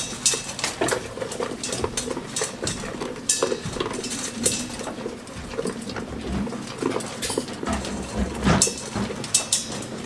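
Goats eating feed from metal bowls on a straw floor: irregular crunching and clicking of chewing, with knocks of muzzles against the bowls, the loudest about eight and a half seconds in.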